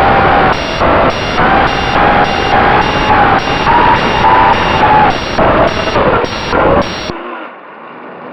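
Electronic beeping from racing-drone gear, repeating about twice a second, over a loud steady noise with a wavering tone. Both cut off suddenly about seven seconds in.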